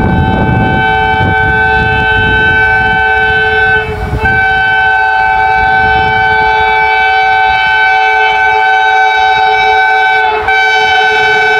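Vande Bharat Express train sounding its horn as it approaches: a long, steady horn blast, broken by two short gaps, about four seconds in and near the end.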